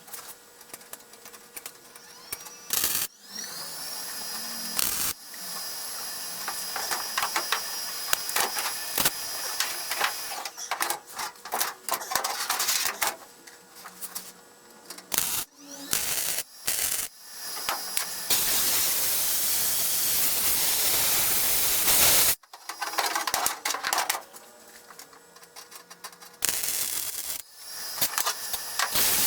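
Welding a sheet-metal patch into a car's rusted window-channel corner: crackling, hissing welds in stop-start runs of a few seconds, with one longer continuous bead about eighteen seconds in. A steady high whine sounds over the first part.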